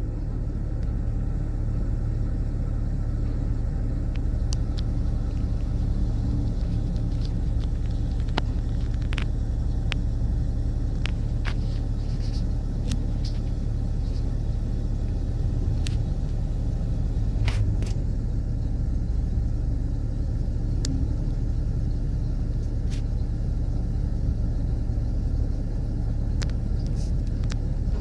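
Excavator's diesel engine running steadily with a low rumble, with scattered short sharp clicks or knocks.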